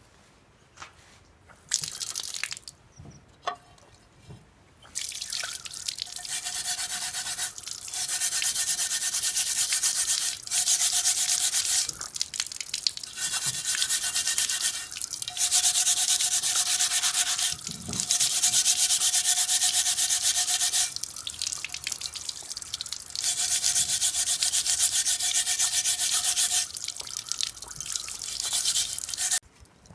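An iron griddle plate being scrubbed, in stretches of two to three seconds with short pauses between them. It starts with a few short rubs and stops just before the end.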